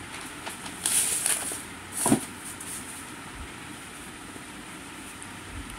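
Handling noise: a short scratchy rustle, then a single knock, as the camera and paper are moved, over a steady background hiss.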